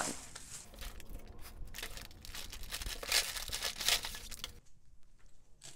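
Clear plastic bag crinkling as it is torn open and a load of costume jewelry and beads is tipped out into a plastic storage box, dense rustling and clicking for about four and a half seconds. Then it goes quiet apart from a single click near the end.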